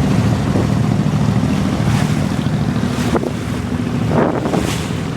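An abra's diesel engine running steadily under way, a low even hum, with wind rushing over the microphone. A few short knocks or splashes stand out briefly near the end.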